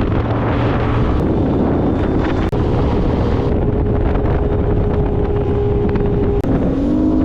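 Boat motor running steadily under heavy wind noise on the microphone, with a faint steady hum.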